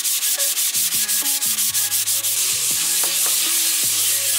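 Hand sanding with sandpaper on a primered bumper-cover panel, rubbing off a black guide coat over white primer to show up pinholes and low spots. Quick back-and-forth strokes at about six a second, blending into a steady rasp a little after halfway.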